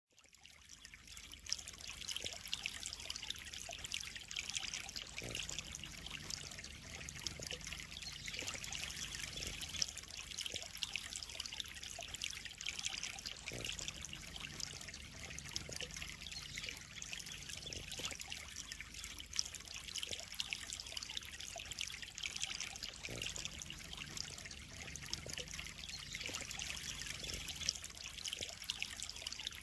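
Water trickling and splashing steadily into a koi pond, fading in over the first second or two.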